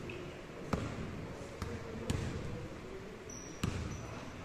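Basketball bouncing on a hardwood gym floor: four sharp bangs at uneven intervals. A brief high squeak sounds about three seconds in.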